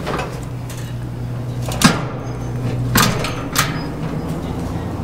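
Three sharp metal clunks, about two, three and three and a half seconds in, with lighter clicks between them, as a steel axle rod is worked in the leg frame of a barbecue grill, over a steady low hum.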